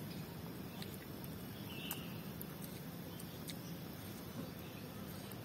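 Quiet outdoor ambience: a steady low rumble with a few faint scattered clicks and one short high chirp about two seconds in.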